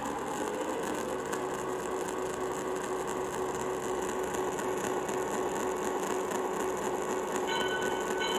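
Loud, steady mechanical whirring noise with a droning hum, starting abruptly. Near the end, short high tones begin to sound on and off over it.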